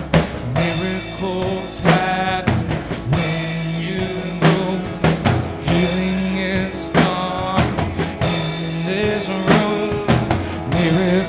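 A live church worship band playing a slow song: a drum kit with strong hits about every two and a half seconds, strummed acoustic guitar and electric guitar, with a singer's voice over them.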